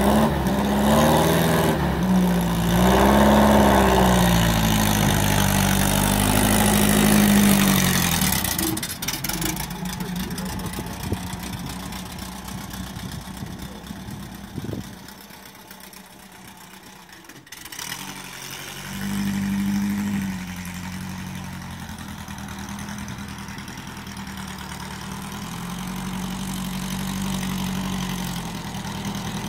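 Newly built dune buggy's engine revving as the buggy pulls away across a grass yard, fading as it drives off, then growing louder with another rev as it comes back and running steadily.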